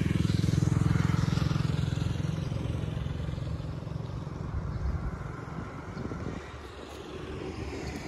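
A motor vehicle's engine passing close by, then fading away over several seconds as it moves off.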